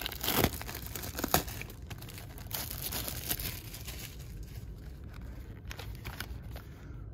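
A trading card box's packaging being torn open and crinkled by hand, with paper inserts rustling. There are two sharp rips in the first second and a half, then steady rustling and crinkling.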